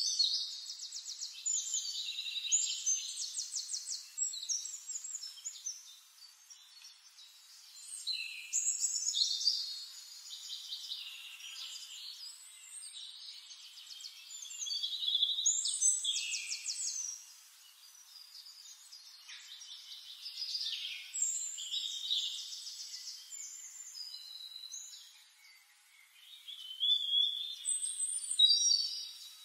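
Songbirds chirping and trilling, with high, fast-trilled phrases and downward-sweeping calls in bursts every several seconds and quieter stretches between.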